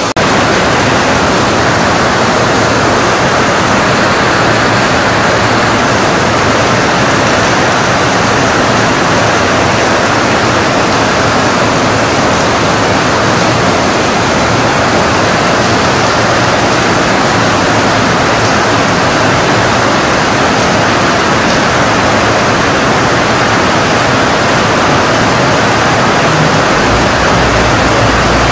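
Heavy rain pouring down steadily in a dense, even hiss.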